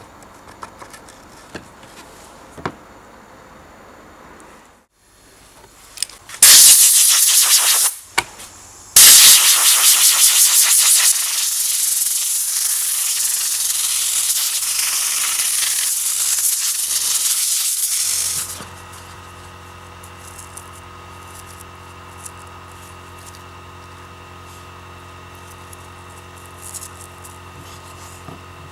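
Loud hiss of compressed air in two blasts, a short one about six seconds in and a longer one of about nine seconds, followed by a steady low motor hum.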